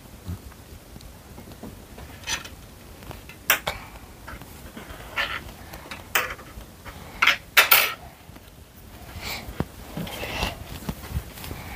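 Scattered light clicks and clinks of small hard objects, about eight of them at uneven intervals, the loudest a quick pair a little past halfway, over low room noise.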